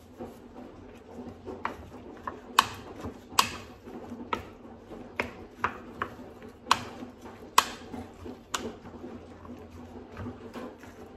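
A wooden spatula clicking against the sides of a glass baking dish while a thick marshmallow salad is stirred. There are about a dozen sharp taps at uneven intervals, and the loudest come near the start and in the middle.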